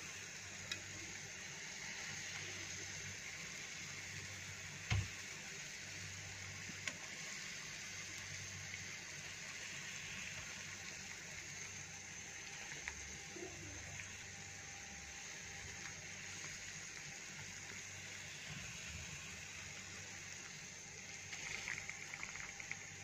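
Tomato-and-tamarind curry gravy simmering faintly in an aluminium pan on a gas stove, a low steady bubbling, with a single knock about five seconds in and livelier bubbling near the end.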